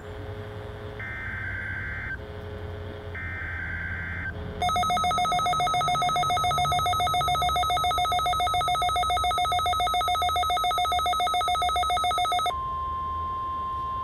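NOAA Weather Radio SAME header: two short bursts of buzzy digital data tones, the coded signal for a Required Weekly Test. Then the Midland weather radio's alert alarm goes off, a loud, rapidly pulsing beep for about eight seconds, followed by a quieter steady single tone.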